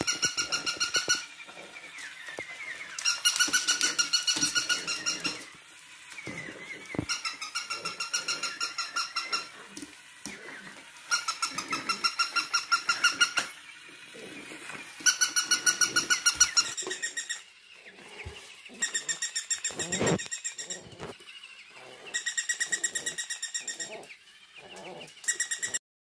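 Battery-powered plush interactive toy dog sounding its electronic bark, a rapid string of high pulsed beeps in bursts of about two seconds, repeated about eight times. Softer scuffling and chewing from a French bulldog puppy worrying the toy fills the gaps.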